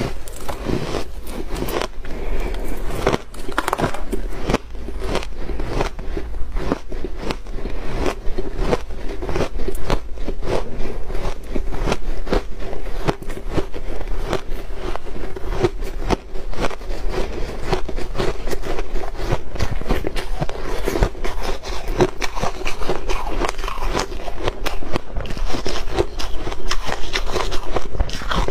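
Close-up crunching and crackling of refrozen shaved ice being bitten and chewed, a rapid, continuous stream of crisp cracks, over a faint steady hum.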